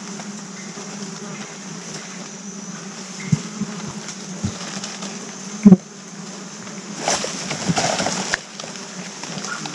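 An insect buzzing close by, a steady drone. A few sharp knocks, the loudest about halfway in, then about a second of rustling near the end.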